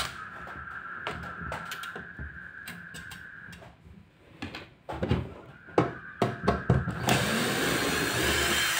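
Cordless drill/driver backing out the screws of a bench power supply's sheet-metal case: a softer steady whine for the first few seconds, then clicks and knocks as the metal case is handled, then the drill running louder again for the last couple of seconds.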